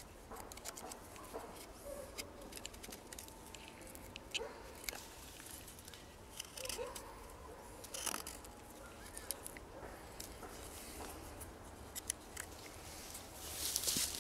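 Fixed-blade knife cutting and shaving a green hazel stick: short, irregular scraping snicks of the blade through bark and wood, with a louder cluster of cuts near the end.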